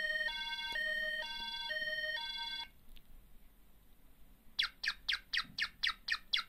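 Adcom sound board on an NEC PC-8001 playing demo sound effects in three-voice chip tones. A buzzy two-note chord pattern alternates about twice a second, like a siren, and stops a little under three seconds in. After a pause, a fast run of electronic chirps follows, each falling in pitch, about four a second, like a bird call.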